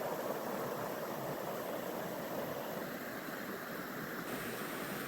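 River flowing: a steady, even rush of moving water.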